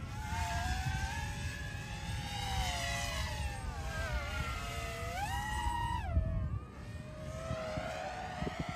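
DJI FPV quadcopter's motors and propellers whining, the pitch sliding up and down as the throttle changes, jumping up about five seconds in and dropping back a second later, over a low wind rumble.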